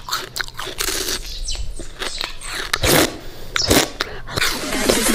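Teeth biting into and crunching a frozen homemade ice pop: a run of irregular crisp crunches, two of them louder past the middle.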